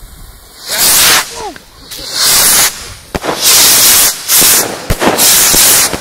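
Skyrockets from an Xplode XP2216 rocket rack launching one after another: about five loud rushing whooshes of roughly half a second each, the first about a second in, with a few sharp cracks between the later ones.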